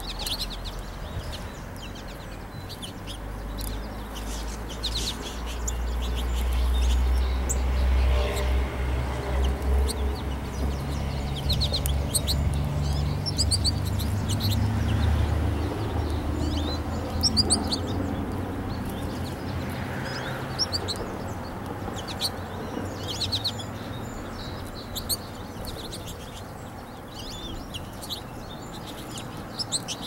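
Small birds, American goldfinches, chirping in short high calls scattered throughout. A low rumble swells a few seconds in, is the loudest sound through the middle, and fades away after about twenty seconds.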